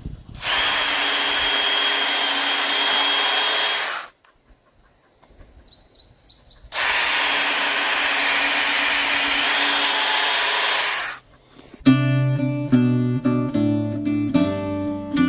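Power drill boring pilot holes in timber: two steady runs at constant speed, about four seconds each, with a pause between. Acoustic guitar music starts near the end.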